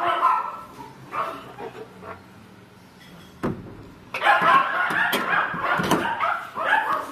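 Miniature pinscher puppies yipping and whimpering while held, mixed with handling knocks on the phone; a single thump about three and a half seconds in, with the yipping busiest after it.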